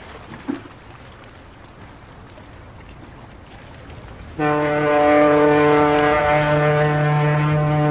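Faint wind and water, then about four seconds in a large warship's horn starts suddenly: one loud, steady, low blast held unbroken.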